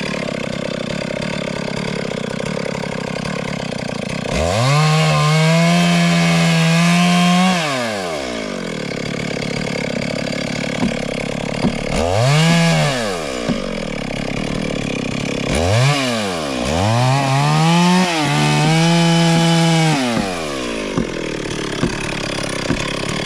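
Chainsaw idling and throttled up to full speed four times, cutting wood: two runs of about three to four seconds at full speed and two brief blips, each rising in pitch and dropping back to idle.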